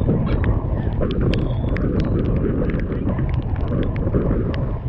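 Strong wind rumbling on the microphone over the running of a fishing boat, with scattered sharp clicks throughout.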